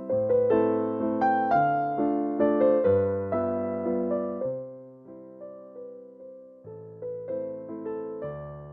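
Background music: gentle piano or electric piano playing chords over a bass line, softer for a moment in the middle.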